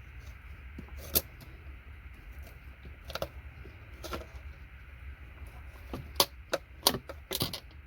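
Irregular sharp clicks and snaps of parts being broken and pried off scrap circuit boards, most of them coming in a quick cluster near the end, over a low steady hum.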